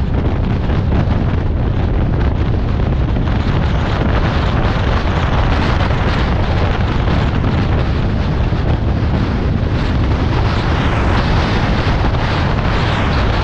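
Steady rush of road and wind noise from a car driving at highway speed, with wind buffeting the microphone.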